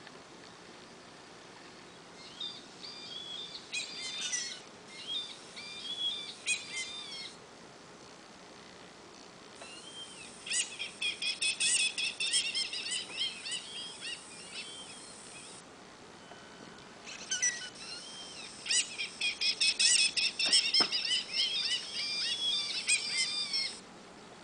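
Recorded bird chirps and calls played through the small loudspeaker of a 1/14-scale RC truck's electronic sound module. They come in three bursts of rapid, high chirping, each starting and stopping abruptly, with quiet hiss between.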